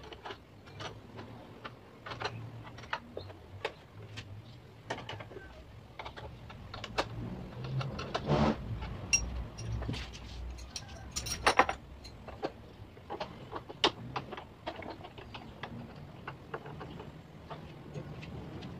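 Metal hand tools and bolts clicking, tapping and clinking at irregular intervals as the strut bar's mounting bolts are fitted and tightened, with a few louder clatters in the middle.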